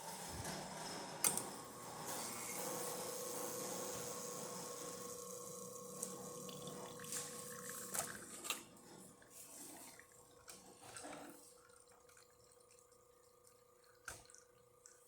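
Quick Mill Vetrano 2B espresso machine pulling a shot: espresso streams and drips into the cup over a steady pump hum. The flow sound dies down after about eight seconds while the hum carries on, with a few sharp clicks.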